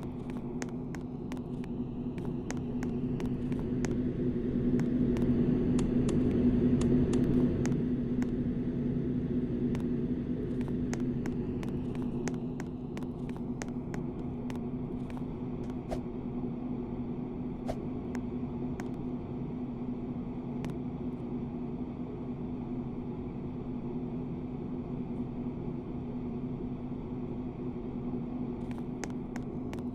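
KDK D15ZM ceiling fan running with a steady motor hum, with scattered light clicks. The hum swells slightly a few seconds in, then holds even.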